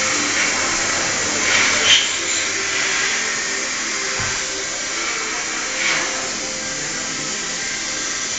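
Steady hissing machine noise of a robot-tended Hermle milling-machine cell at work, swelling briefly about two seconds in and again about six seconds in, with a sharp click near the first swell.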